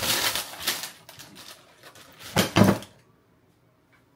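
Baking paper crinkling and rustling as it is folded around a cake loaf, loudest in the first second and then fading to light rustles. A short double thump about two and a half seconds in.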